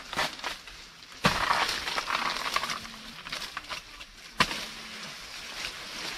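Two sharp chopping strokes with a blade, about three seconds apart, each followed by the rustle of cut leaves moving.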